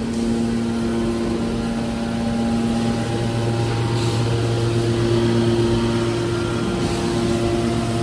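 Metal baler press's hydraulic power unit running: electric motors and hydraulic pumps giving a steady, loud hum with several steady tones. About three seconds in the low hum grows stronger and the tones shift.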